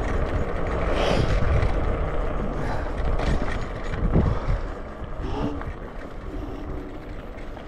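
Wind noise over the microphone while riding an electric scooter, with the motor's flat whine coming in briefly a couple of times in the second half.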